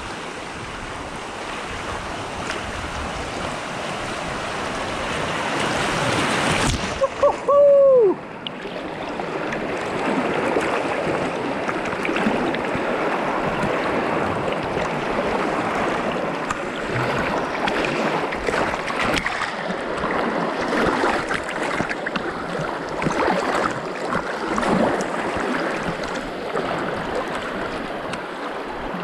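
River water rushing steadily, with a brief louder burst and a short falling tone about seven seconds in.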